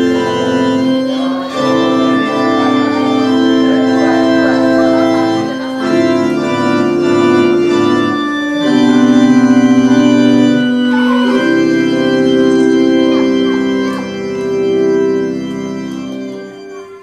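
Organ music: slow, sustained chords held for a few seconds each, fading out near the end.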